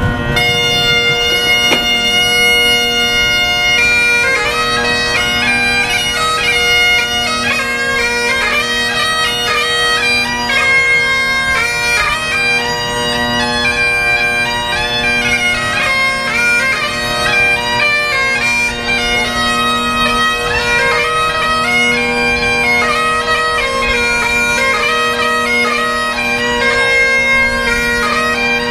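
Great Highland bagpipes played solo: steady drones under the chanter's melody. A single held note sounds over the drones at first, and the tune gets under way about four seconds in.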